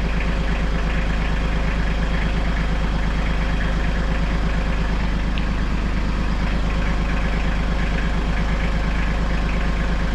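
Iseki TLE3400 compact tractor's diesel engine idling steadily with an even beat, warming up so the oil drains more easily.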